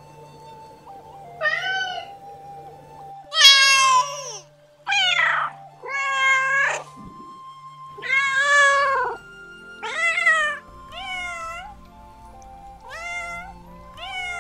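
Domestic cats meowing again and again, about nine separate meows of different pitch and length, some rising and some falling, over a soft background of held musical notes.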